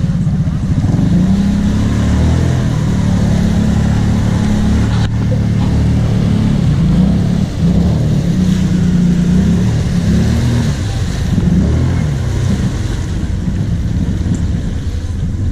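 Kawasaki KVF 750 Brute Force quad's V-twin engine working under load, its revs rising and falling as the quad churns through deep muddy water, with mud and water splashing.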